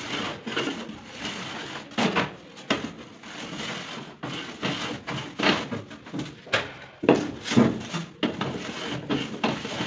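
Hand plane shaving the cut edge of an aluminium composite panel sheet, a run of uneven scraping strokes as the edge is trimmed straight.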